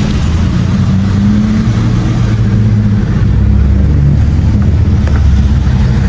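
Car engine heard from inside the cabin, running loudly and pulling away under acceleration, its low note shifting in pitch a couple of times.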